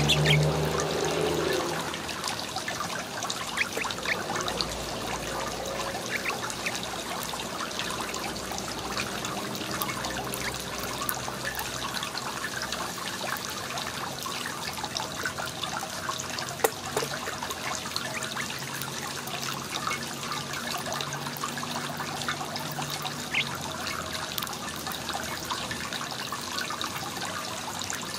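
Steady rushing background noise, with scattered small ticks and taps from house finches pecking among sunflower seeds on a porch floor. A low hum is louder in the first two seconds, then drops away.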